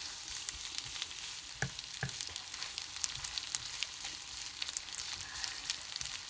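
Shrimp and spaghetti in a butter and cream sauce sizzling in a pan, with scattered crackles. A utensil stirring gives a few light knocks about one and a half to two seconds in.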